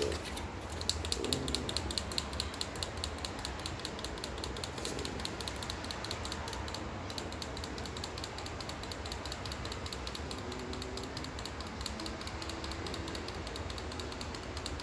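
A rapid, even run of light clicks, several a second, starting about half a second in, with faint voices in the background.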